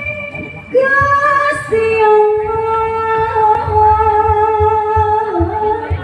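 Singing: a melody of long held notes, the pitch changing about a second in and again near two seconds, over soft irregular low drum beats.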